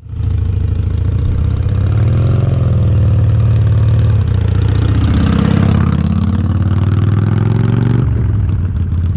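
Harley-Davidson Sportster Iron 883's air-cooled V-twin engine running loudly near idle, its pitch rising and falling a couple of times as it is blipped, then dropping back about eight seconds in.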